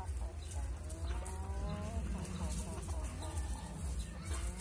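Broody hens clucking softly, a string of faint gliding calls, over a steady low rumble.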